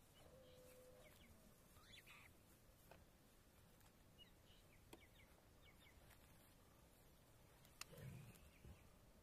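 Near silence: faint outdoor ambience with a few soft bird chirps, and a soft low thump near the end.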